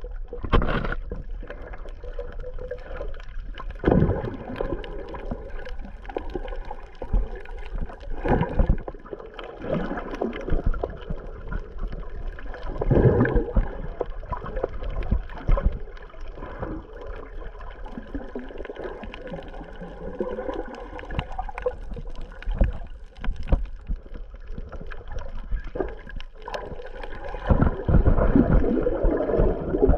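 Underwater sound from a submerged GoPro Hero 8 microphone while snorkeling: muffled water sloshing and gurgling against the camera, with irregular low thumps and surges as it moves through the water. A faint steady hum sits underneath.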